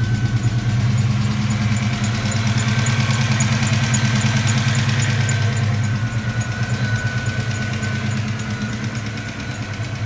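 A 1989 Ford Mustang LX's 5.0-litre (302 cu in) small-block Ford V8 idling steadily, growing a little fainter over the last few seconds.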